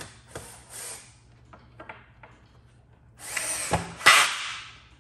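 Power drill driving a screw to fasten a side rail to a pinball playfield: two short runs of the drill near the start, a few light clicks, then a longer, louder run of about a second and a half near the end.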